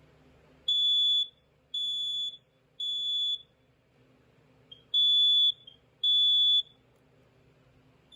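First Alert SA304 smoke alarm sounding on test, its horn giving loud, high-pitched beeps about half a second long. Three come about a second apart, then after a pause two more follow, the smoke alarm's three-beep evacuation pattern.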